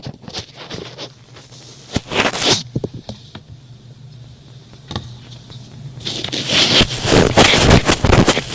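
Thick cotton swab rubbing and scratching in ASMR ear cleaning, crackly strokes. A lull in the middle, then denser, louder rubbing from about six seconds in.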